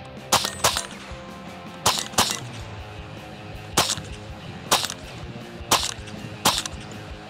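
A GSG AK-47 semi-automatic rifle in .22 LR fired eight times at an uneven pace, with two quick pairs of shots followed by single shots about a second apart.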